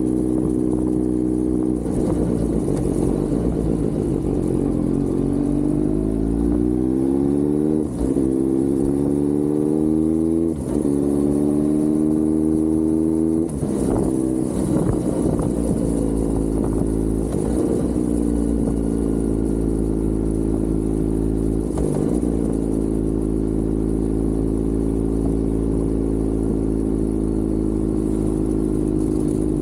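Kawasaki Z900 inline-four motorcycle engine pulling hard through the gears. Its pitch climbs and drops sharply at three upshifts, about 8, 10.5 and 13.5 seconds in. It then settles into a steadier run, slowly falling in pitch with a few brief dips.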